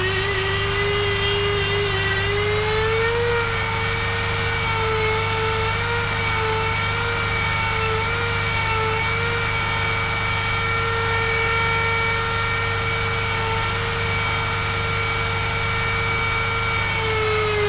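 Power tool motor running steadily at high speed, its pitch wavering slightly and never stopping.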